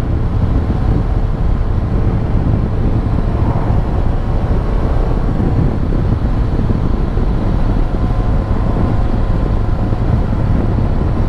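Heavy, steady wind rumble on a motorcycle helmet microphone, tucked inside the cheek pad and pointing downwards, with the Suzuki GSX-S1000GT's inline-four engine running steadily underneath. The wind comes from the microphone's downward-facing position.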